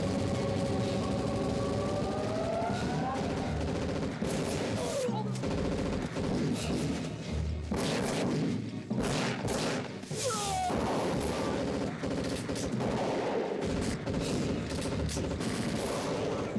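Film battle sound: rapid gunfire from automatic rifles, volleys of shots coming thick and fast through most of the stretch, over a dramatic music score.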